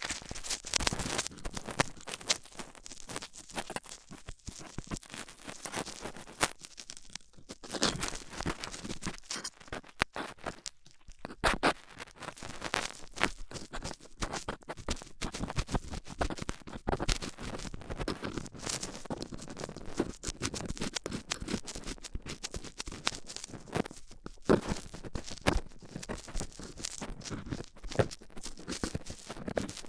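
Stainless steel dental pick scraping and scratching close in an ear in simulated ear cleaning: a dense, irregular run of scratches and sharp clicks.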